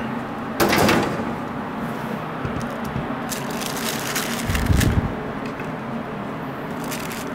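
Person eating a crisp baked tortilla samosa: handling rustle of the cardboard box near the start, then a few crunching bites about three to five seconds in, with a dull thump among them, over steady background noise.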